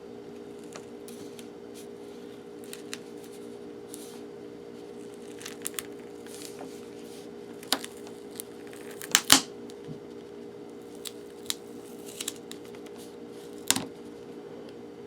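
Scattered small clicks and scrapes of hands and tools working the battery out of an LG Stylo 4 phone, loudest a close pair of clicks about nine seconds in, over a steady low hum.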